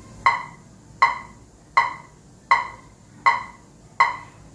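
Metronome clicking steadily at 80 beats per minute: six even clicks about three-quarters of a second apart, the tempo set for practising the cumbia rhythm.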